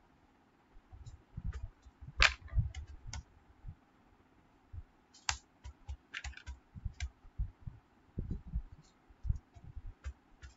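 Keystrokes on a computer keyboard, typed in short uneven bursts with brief pauses, a few strokes sharper than the rest.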